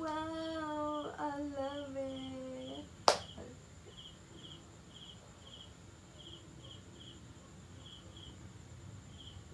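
A person humming one long note that sinks slightly in pitch, cut by a single sharp click about three seconds in. Crickets chirp in short pulses throughout.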